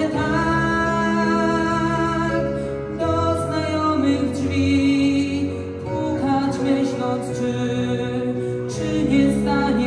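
Slow pop ballad on a backing track of sustained keyboard chords, with a male singer singing into a microphone over it.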